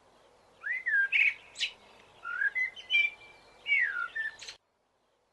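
A songbird singing: short phrases of slurred, whistled notes and quick chirps with brief pauses between them, which cut off suddenly about four and a half seconds in.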